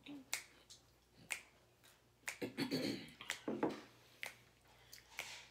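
Fingers snapping in a steady rhythm, about once a second, six snaps in all. A voice is heard briefly between the snaps a little before the middle.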